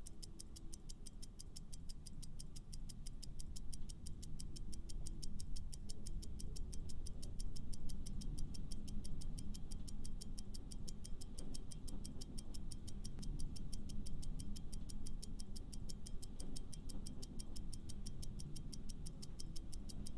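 Quiz countdown-timer effect: a clock ticking steadily, several ticks a second, over a low background music bed while the viewer picks an answer.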